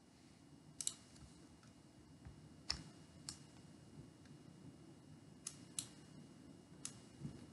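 Computer mouse clicking about six times, faint and sharp, over low room noise.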